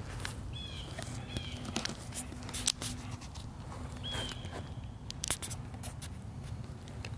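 A dog at the camera: a few short, high squeaks with scattered clicks and knocks close to the microphone, over a steady low rumble.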